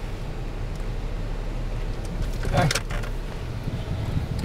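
Car engine running, a steady low hum heard from inside the cabin, with a brief voice sound a little past halfway.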